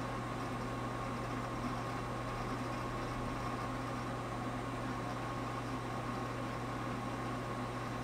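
Desktop PC running with a steady whir and hum from its cooling fans as Windows 7 boots.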